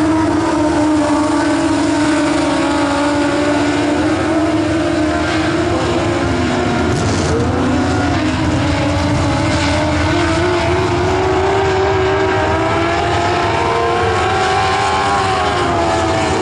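A pack of dirt-track race cars running at racing speed, several engine notes overlapping and rising and falling in pitch as they circle the oval.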